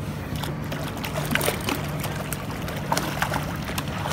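Boat engine running steadily at idle, with water splashing and scattered sharp knocks and clicks.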